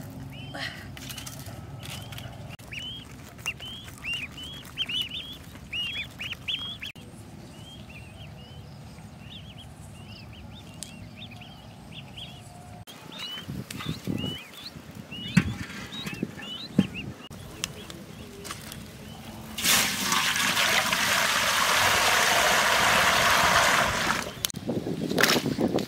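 Ducklings peeping, many quick high chirps in a row, with a few knocks in between. Near the end, water pours in a steady rush into a large iron wok for about four seconds, then stops suddenly.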